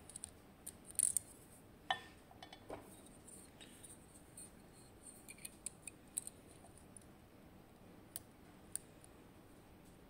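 Faint, scattered small metallic clicks and scrapes of a steel lock pick working the Christmas-tree pins of an Assa 700 pin-tumbler cylinder held under tension. There are a few louder clicks in the first three seconds, then sparser, fainter ticks.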